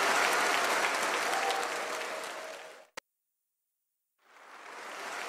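Large audience applauding in a hall, fading out about three seconds in. A single sharp click follows, then about a second of dead silence before applause fades back in near the end.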